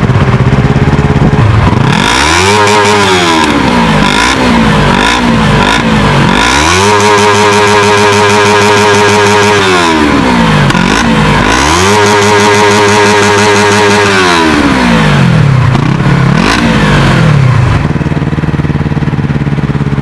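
Warmed-up Eligator 250cc EFI eight-valve twin-cylinder motorcycle engine being revved in place: it idles, then gives a rev, several quick throttle blips, two long revs held high for about three seconds each, more blips, and drops back to idle near the end.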